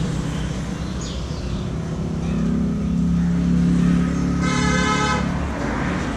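Road traffic: a motor vehicle's engine running, growing louder and fading as it passes, with one horn blast lasting about a second near the end.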